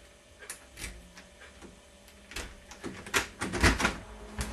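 Keys clinking and clicking at a window's lock handle, as a key is worked in the lock. A few faint clicks come first, then a quick run of louder clicks and rattles about two and a half seconds in.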